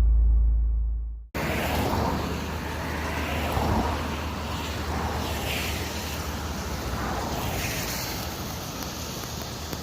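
A deep rumble of thunder cuts off about a second in. It is followed by the steady, rushing hiss of torrential rain pouring down.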